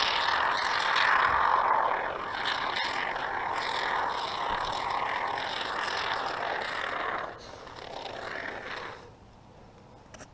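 Aerosol can of Great Stuff Gaps & Cracks expanding polyurethane foam spraying through its straw nozzle: a steady hiss that weakens after about seven seconds and stops near the end.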